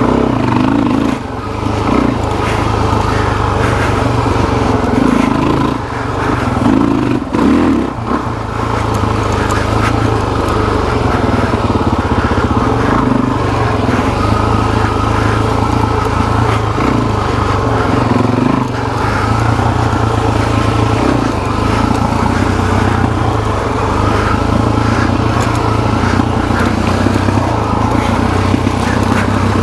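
Suzuki DR-Z400SM's single-cylinder four-stroke engine running under way, dropping off briefly about a second in and twice more around six to eight seconds in, then pulling steadily.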